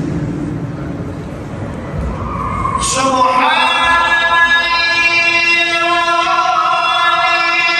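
A solo voice chanting an Islamic prayer recitation in long held notes, echoing through a large domed mosque. The chant is quieter for the first seconds, then about three seconds in the voice slides up and holds a long high note.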